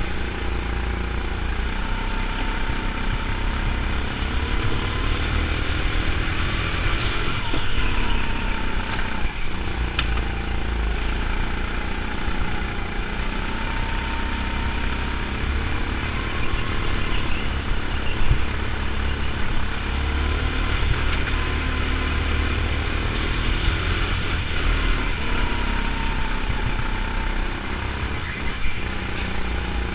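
Go-kart engine running at racing speed, heard from on board, its pitch rising and falling as the kart brakes and accelerates through the corners.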